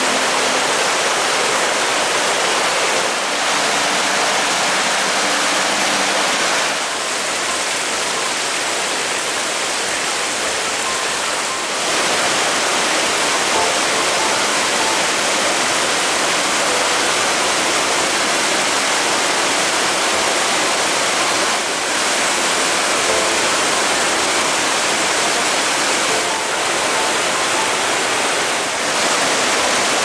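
Mallnitzbach mountain stream cascading down waterfalls and over boulders: a steady, loud rush of white water, dipping slightly in level a few times.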